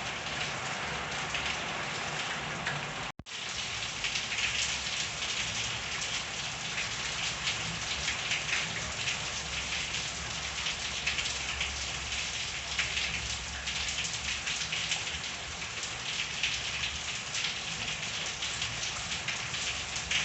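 Steady rain falling, a dense patter of drops on surfaces. The sound cuts out for a split second about three seconds in.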